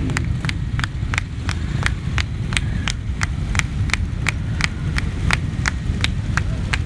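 Close, rhythmic hand-clapping, about three claps a second, over the steady low rumble of motorcycle engines.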